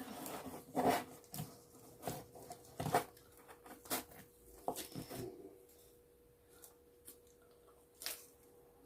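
Scattered short clicks, rustles and crunches of pizza being handled and eaten, quieter after about five seconds, over a faint steady hum.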